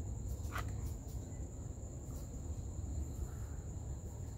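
Steady high-pitched trill of night insects over a low rumble, with one short click about half a second in.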